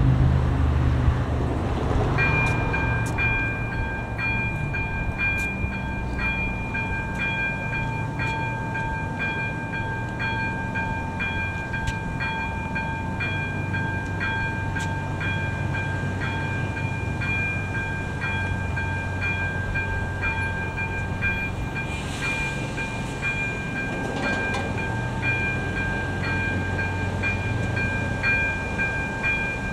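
Level-crossing electronic warning bell (AŽD ZV-02 E-bell) starting about two seconds in and sounding a fast, regularly repeating ring, warning that the crossing is closing for a train. A constant low rumble runs underneath.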